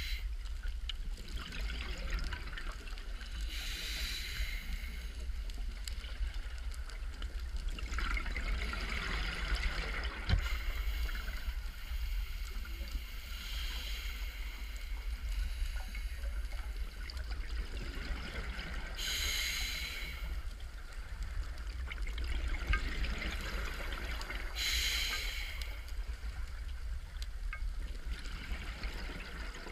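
Open-circuit scuba breathing through a regulator, heard underwater: a bubbling hiss of breaths and exhaled bubbles recurring about every five seconds over a steady low rumble.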